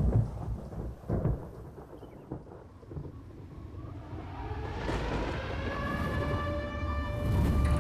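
Deep rumbling booms like thunder, the strongest right at the start and about a second in. From about five seconds in, a steady drone of several held tones swells up over the rumble and grows louder.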